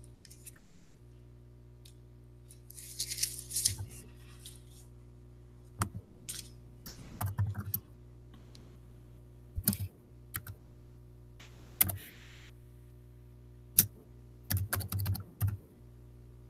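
Computer keyboard typing and clicking in short irregular bursts, over a steady low electrical hum.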